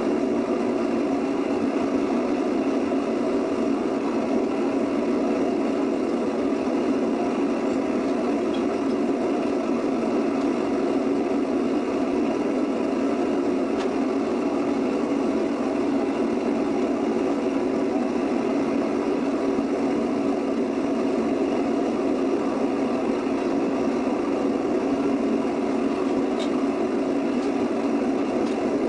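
Small foundry furnace firing at full heat, a steady rushing noise that holds even throughout, while aluminum strips melt down in its crucible.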